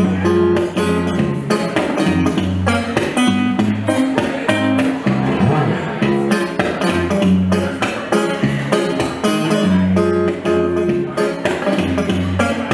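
Amplified homemade wooden box-bodied guitar played solo: a rhythmic riff of plucked notes over repeated low bass notes, with sharp attacks on the strings.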